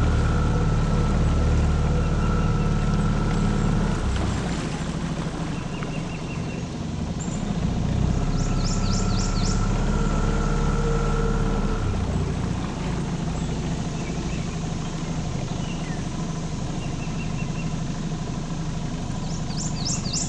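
Tohatsu 9.8 hp four-stroke outboard running steadily, throttled back about four seconds in, picking up again for a few seconds, then running slow near idle. Birds chirp briefly over it a few times.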